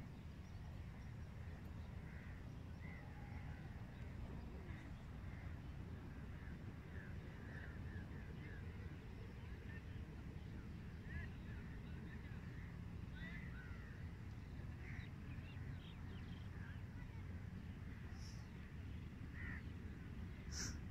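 Birds calling outdoors: many short, scattered chirps and calls over a steady low rumble, with a couple of brief higher squeaks near the end.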